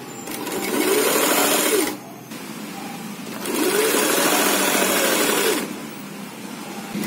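Sewing machine stitching cotton fabric in two runs, the first about a second and a half long, the second about two seconds, with a short pause between; each run rises in speed and then slows to a stop.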